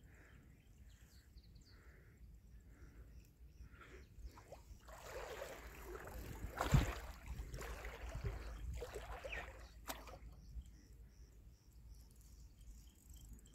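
Low wind rumble on the microphone, with a louder stretch of rustling handling noise in the middle and one sharp knock about seven seconds in, while a hooked carp is played on a spinning rod.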